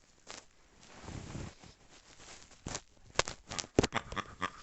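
Plastic squeeze-toy pig being handled: a quick string of sharp clicks and knocks starting a little before three seconds in, with a faint thin squeal near the end.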